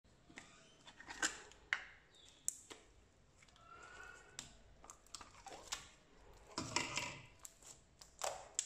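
Homemade glue-and-detergent slime being stretched and squeezed by hand, giving irregular sharp clicks and small squelching pops.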